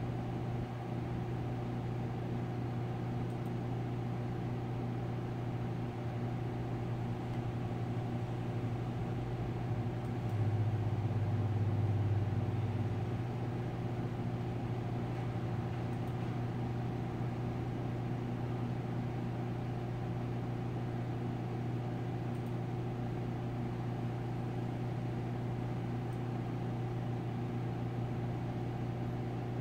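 Steady low electrical or machine hum, holding one pitch with several overtones, a little louder for a couple of seconds about ten seconds in.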